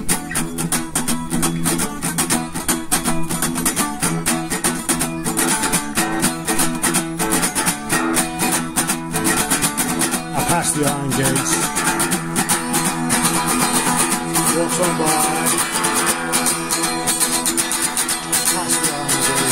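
Music led by guitar, with a fast, steady rhythm.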